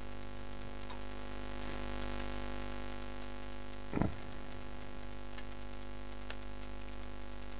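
Steady electrical mains hum, made of several layered steady tones, from the supply that has just been plugged in, with a single brief knock about four seconds in.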